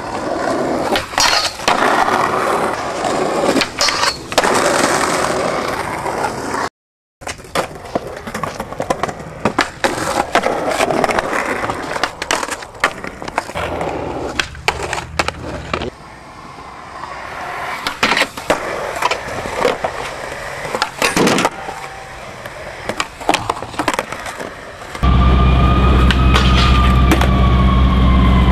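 Skateboard wheels rolling on pavement, broken by sharp clacks and impacts of the board from tricks and landings. Near the end a siren sounds over a loud low rumble, its pitch rising slightly and then falling slowly.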